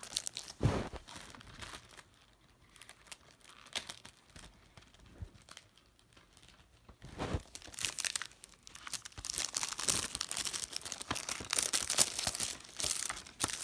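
Plastic shrink wrap crinkling and tearing as it is peeled off a DVD case, with a couple of knocks from handling the case. It falls quiet for a few seconds in the middle, then the crinkling resumes.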